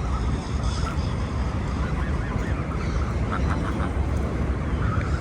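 Geese calling: short nasal honks, with a quick run of four or five calls about three seconds in, over a low steady rumble.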